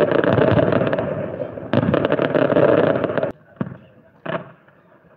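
Fireworks display: a dense barrage of rapid bangs and crackling, with a fresh loud volley about two seconds in. It cuts off suddenly after about three seconds, leaving two single bangs.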